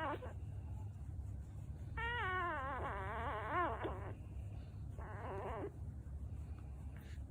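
Shiba Inu dog making funny, warbling vocal noises while being scratched, a sign that she is enjoying it. There is a short cry at the start, a long wavering call about two to four seconds in, and a shorter one around five seconds.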